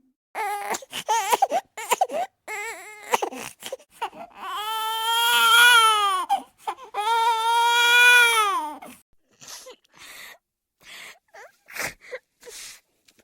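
Newborn baby crying: a run of short, wavering cries, then two long arched cries about four and seven seconds in, then fainter short whimpers and breaths.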